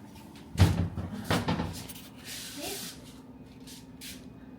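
Closet doors being shut: two solid knocks, the second under a second after the first, followed by a brief rustle.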